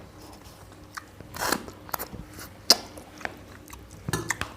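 Close-up eating sounds of rice with chicken curry: chewing, with several short, sharp mouth smacks scattered through.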